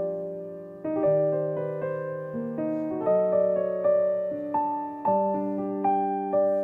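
Soft background piano music, chords struck about once a second and left to ring.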